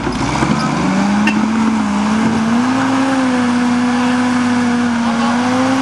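WWII jeep's four-cylinder side-valve engine running hard at high revs under heavy load while climbing a steep dirt bank. The engine note rises a little in the first couple of seconds, then holds steady.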